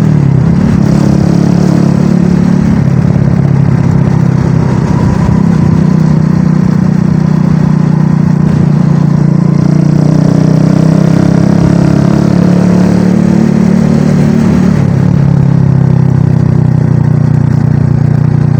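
Motorcycle engine running steadily while riding, its pitch shifting a few times as the throttle changes.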